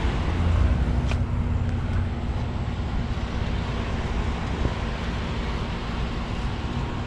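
2019 Daikin central heat pump outdoor unit running steadily in cool mode: a low compressor hum with a constant tone and the rush of the condenser fan. A faint tick about a second in.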